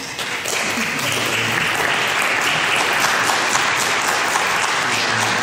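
Congregation applauding: many hands clapping together in a steady wash that swells up about half a second in.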